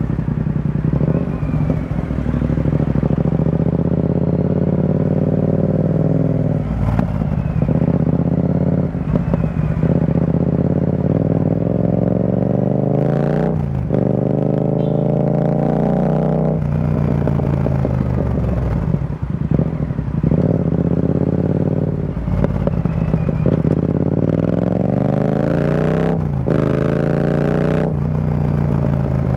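Yamaha XSR700's 689 cc parallel-twin running through an Akrapovic carbon full-system exhaust with the dB killer removed, ridden in traffic. The exhaust note climbs in pitch under throttle and breaks off or drops back between pulls, over and over.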